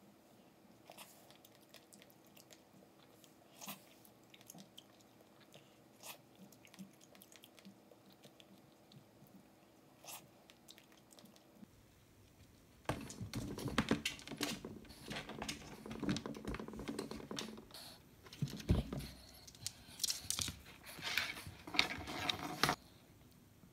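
Faint chewing and small clicks of a fork while fresh strawberries are eaten. About twelve seconds in, a louder irregular clatter and rustle of green grapes being handled in a metal colander.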